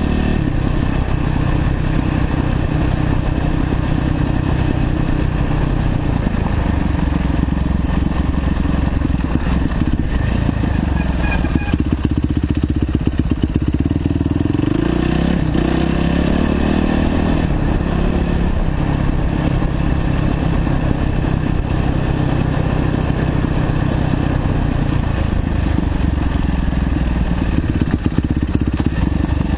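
2009 Yamaha YZ450F dirt bike's single-cylinder four-stroke engine running under way at steady, fairly low revs, its pitch dipping and rising a few times with throttle changes around the middle.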